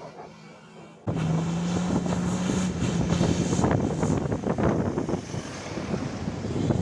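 Wind buffeting the microphone over a 4x4 driving in loose sand. The sound gets abruptly louder about a second in, and a steady low engine drone holds for a couple of seconds.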